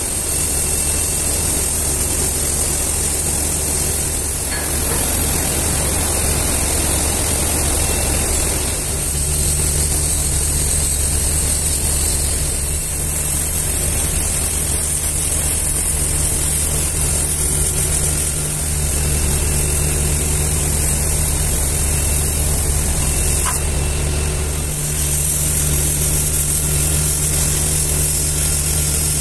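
Oxy-fuel cutting torch on a radius arm cutting a curve through steel plate: a steady loud hiss from the cutting jet, with a steady low hum underneath.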